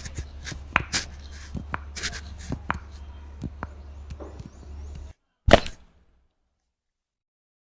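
Scattered light clicks and knocks over a steady low hum. Then the sound cuts out abruptly, broken once by a single loud, short burst about five and a half seconds in.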